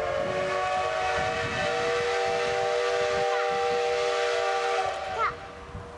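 Steam locomotive whistle sounding one long, steady blast of several pitches at once over a steam hiss, cutting off about five seconds in.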